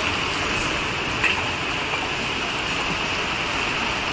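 Heavy rain falling steadily, a constant even hiss with no break. A single small click sounds a little over a second in.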